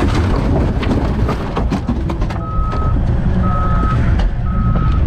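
A vehicle's reversing alarm beeping, one steady half-second beep about every second, starting a couple of seconds in. It sounds over a low wind-like rumble, with knocks and clatter in the first seconds.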